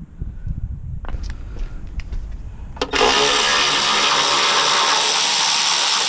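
A few tool clinks, then about three seconds in a handheld power tool starts up and runs steadily with a loud whir, driving a mount bolt.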